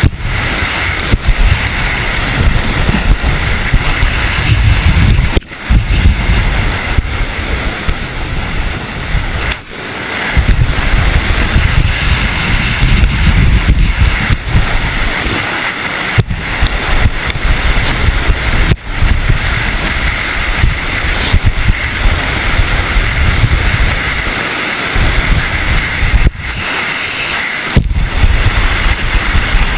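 Wind noise buffeting a skier's GoPro at downhill racing speed, a heavy steady rumble with the hiss of skis on snow above it. The rumble drops out briefly several times.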